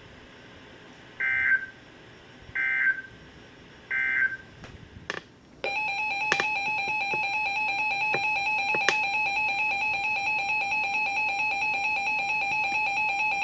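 Three short bursts of warbling digital data tones, the EAS SAME header sent three times, then after a click the EAS two-tone attention signal comes on about six seconds in and holds steady and loud. This is the signal that opens a new tornado warning alert.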